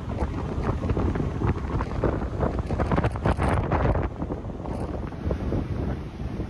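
Wind buffeting the microphone on the open deck of a ferry under way: a loud, uneven rumble that comes in gusts.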